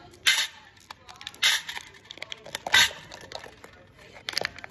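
Sharp plastic clicks and rattles from jelly beans being handled and pushed into their places in the game's packaging: three louder ones a little over a second apart, with light ticks between.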